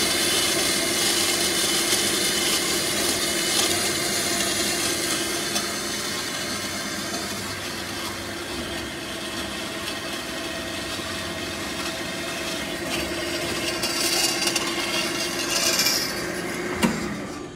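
Kasto SSB-A2-CNC-CC automatic vertical band saw running, its blade sawing through rectangular metal tubing with a steady hum and grinding hiss. Near the end there is a sharp clunk and the machine noise drops away abruptly.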